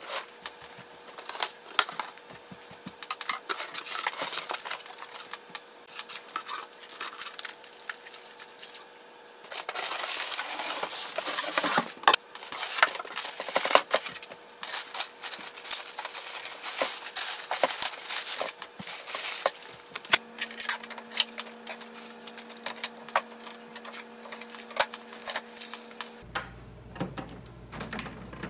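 Printer unboxing: scissors slitting packing tape on a cardboard carton, then foam packing inserts and plastic wrap handled and pulled off, with many scattered clicks, knocks and rustles. A faint steady hum sits underneath until a cut near the end.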